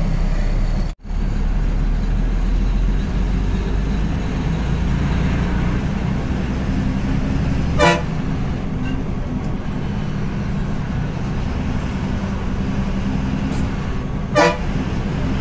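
Inside a moving TNSTC bus, a steady low drone of engine and road noise. It is broken by two short horn toots, one about eight seconds in and one near the end. The sound drops out for an instant about a second in.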